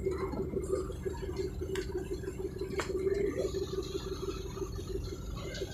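Steady drone of a passenger ship's engines: an evenly pulsing hum over a low rumble, with a couple of brief clicks.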